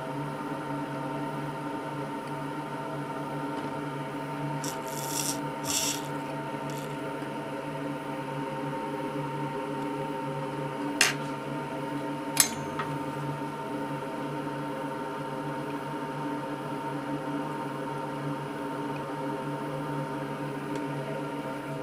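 Metal tweezers handling a tiny SMD resistor on a circuit board in a metal jig: brief rubbing and scraping about five seconds in, then two sharp clicks about a second and a half apart near the middle. A steady electrical hum runs underneath.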